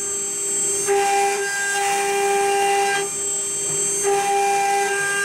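Spindle of a 1325 stone CNC router engraving a stone disc: a steady spindle whine. A higher cutting noise over it drops out for about a second twice, at the start and about three seconds in, then comes back.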